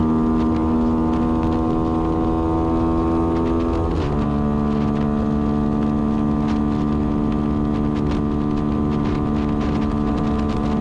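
Yamaha Y15ZR's 150 cc single-cylinder four-stroke engine running steadily at cruising speed. Its note steps down in pitch once, about four seconds in.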